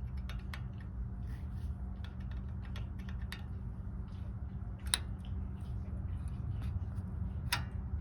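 Scattered metal clicks and taps of a tool pushing at the pad retaining pin in a brake caliper, the sharpest about five seconds in and again near the end, over a steady low hum.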